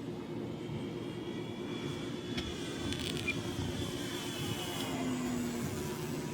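E-flite Extra 300 model airplane's electric motor whining overhead, its pitch bending up and down as the plane manoeuvres, under a heavy rumble of wind on the microphone.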